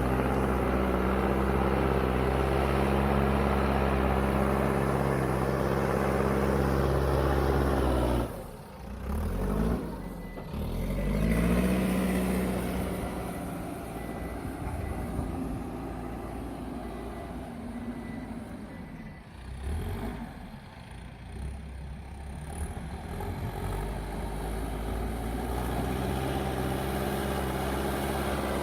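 Diesel engine of a JCB backhoe loader running under working load. It breaks off abruptly about eight seconds in, revs up again, then runs quieter for a while before building back to heavy running near the end.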